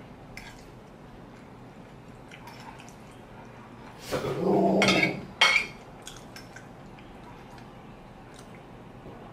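Eating spaghetti: a fork twirls pasta and taps lightly on a ceramic plate, with soft chewing. About four seconds in, a louder voice-like sound lasts about a second, followed by one sharp loud crack.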